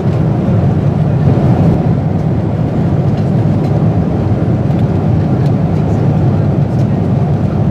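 Steady cabin noise of a Boeing 747-8 in cruise, heard from inside the cabin: an even, deep rush of airflow and engine noise with no change in level.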